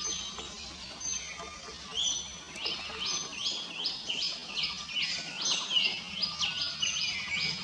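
Bird chirping: a rapid run of short, falling chirps, about three a second, denser from about two seconds in.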